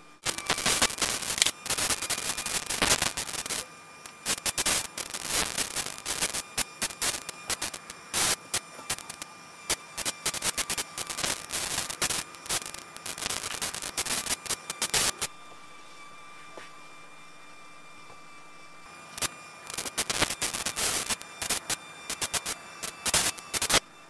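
Crackling static interference in a camera's audio track: dense sharp crackles and pops that start suddenly, ease briefly about four seconds in, stop for about four seconds after the midpoint, then return and cut off just before the end. Faint steady whining tones sit underneath during the lull.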